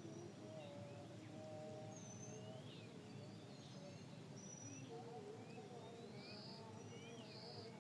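Several small birds chirping and calling, with short sliding notes and two brief buzzy notes near the end, over a faint steady wind hush.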